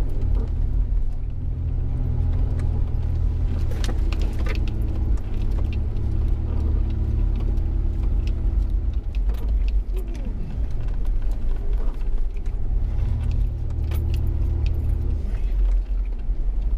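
Off-road vehicle engine running steadily under load, with frequent rattles and knocks from the bouncing vehicle. The engine note drops around the middle and picks up again a couple of seconds later, and the sound cuts off suddenly at the end.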